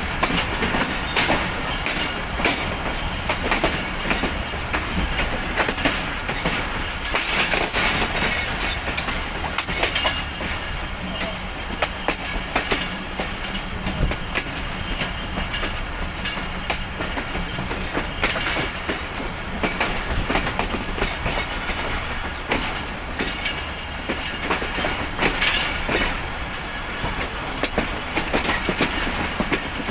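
Passenger coach wheels running on the track: a steady rumble broken by frequent, irregular clicks and clacks as the wheels strike rail joints and pointwork, heard from the open coach doorway.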